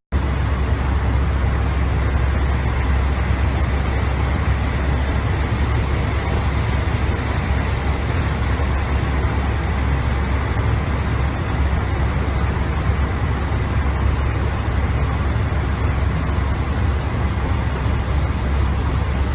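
Steady rushing cockpit noise of an airliner in flight above the clouds: airflow over the flight deck and a deep, even rumble, unchanging throughout.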